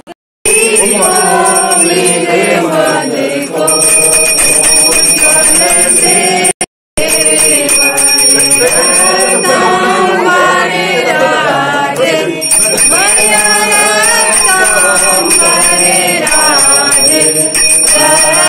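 Hindu devotional singing (aarti/bhajan) with a bell ringing steadily through it. The sound drops out briefly about six and a half seconds in.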